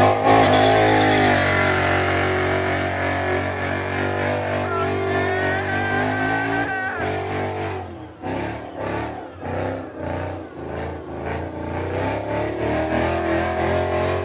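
Car engine revving hard and held at high revs, its pitch gliding, then pulsing in quick repeated blips from about halfway through.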